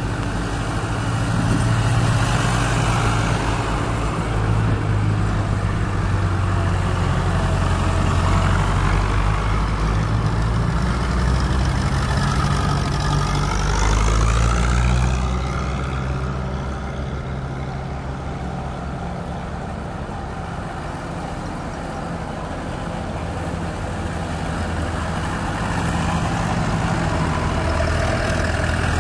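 Vintage tractor engines running as the tractors drive past. One tractor comes up and passes close about halfway through, and its engine sound fades away. Near the end a second tractor approaches and grows louder.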